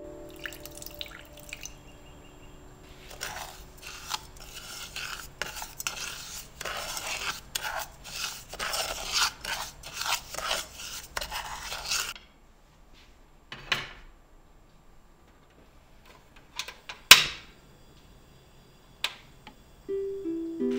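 A wooden spoon stirring and scraping granulated sugar in a pot, a quick run of gritty strokes lasting several seconds, as caramel-making begins. This is followed by a few separate clicks and knocks, the loudest a sharp click about three-quarters of the way through. Soft music comes in near the end.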